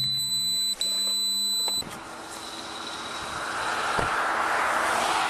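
A steady high electronic tone with a low hum for about two seconds, cut briefly once, then the road noise of highway traffic swelling up and holding, with a single sharp click about four seconds in.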